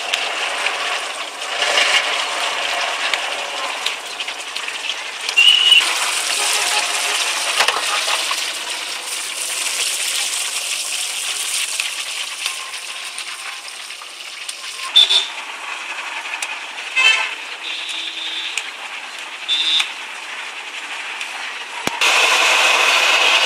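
Mushroom pakoras deep-frying in a large iron kadai of hot oil, a steady sizzle and bubbling, with a few short horn-like toots from the street. The sizzle is louder near the end.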